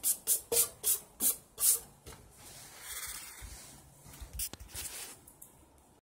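Whooshes of a 52-inch Hampton Bay Landmark ceiling fan's blades sweeping past close to the microphone. They start at about five a second and space out over the first two seconds as the fan slows toward a stop, giving way to a faint hiss with a few light clicks.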